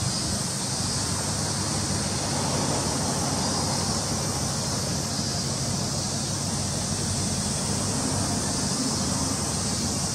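Steady outdoor background noise: a continuous hiss over a low hum, unchanging throughout.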